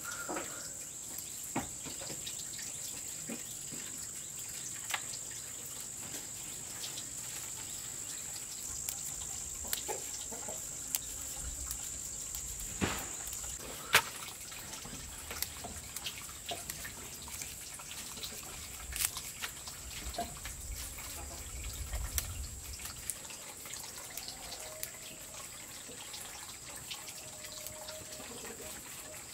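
Water trickling from a pipe into a plastic basin, with a steady high-pitched insect drone and scattered small snaps and clicks as leaves are picked from their stems.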